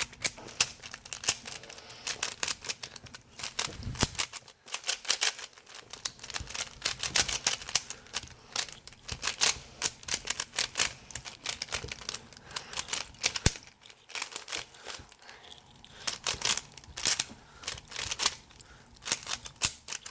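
Xtimer X-V6 stickerless 3x3 speed cube being turned rapidly by hand, its plastic layers clicking and clacking in quick irregular flurries with a couple of brief pauses.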